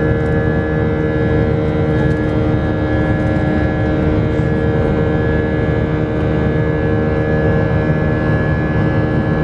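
Airbus A319 jet engines running steadily, heard inside the cabin over the wing while the airliner climbs after takeoff: a dense low rumble with several steady whining tones on top.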